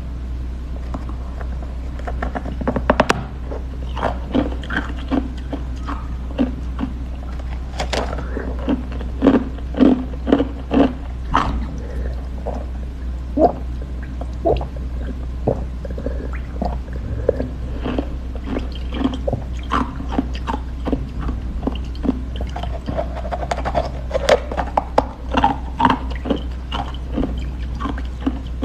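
Close-miked eating: irregular bites, crunches and wet chewing smacks, over a steady low hum.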